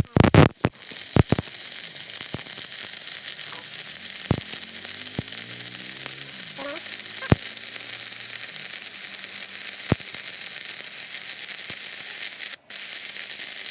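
Stick-welding arc on a 6013 rod crackling steadily, with a few sharper pops and a brief break near the end.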